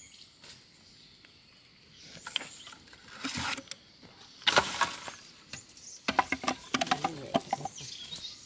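Machete hacking at dry, charred bamboo stumps: scraping and rustling of burnt debris, one loud crack about halfway through, then a quick run of hard, hollow knocks near the end.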